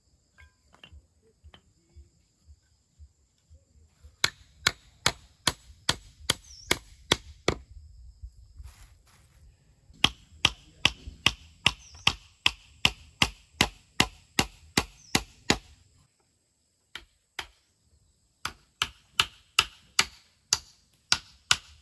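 Hammer striking wood, sharp blows at about three a second in three runs with short pauses between.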